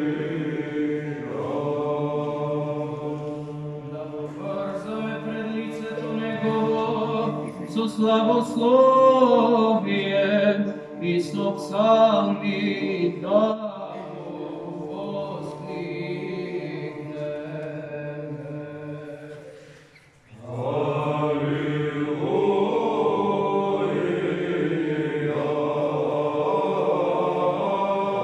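Male Byzantine Orthodox choir chanting a cappella: a steady held drone (ison) under a melodic line with ornamented runs. The voices break off briefly about two-thirds through, then come back in together.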